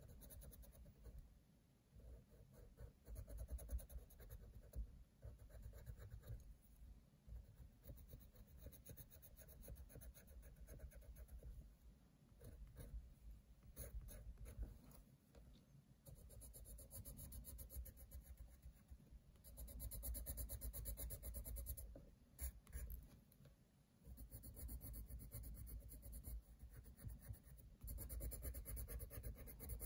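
Coloured pencil scratching faintly on paper, shading in quick back-and-forth strokes, a little louder for a few seconds past the middle.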